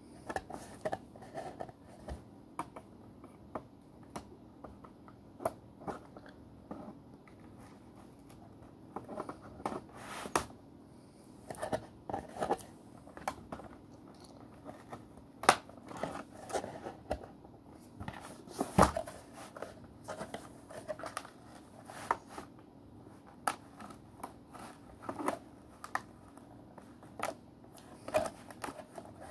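Scissors snipping and plastic toy packaging crinkling and tearing as a doll is cut free of it: irregular sharp clicks and rustles, with a few louder snaps near the middle.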